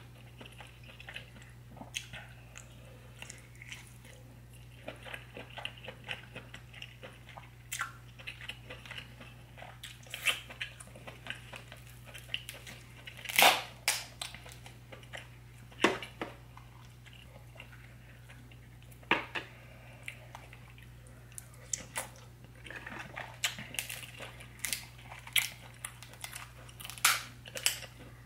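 Close-miked eating of a seafood boil: wet chewing and mouth sounds, with scattered sharp clicks and snaps as king crab legs are handled and the meat is pulled from the shell. The loudest snaps come about halfway through. A faint steady low hum runs underneath.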